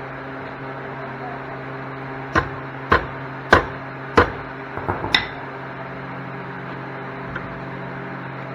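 Hammer striking metal: four hard blows a little over half a second apart, then a few lighter taps about five seconds in, likely beating bent crash-damaged pit bike parts back into shape. A steady low hum runs underneath.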